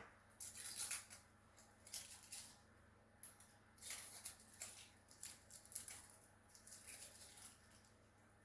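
Dry, papery onion skin crackling and rustling as it is peeled off, in faint, short, irregular scratchy bursts.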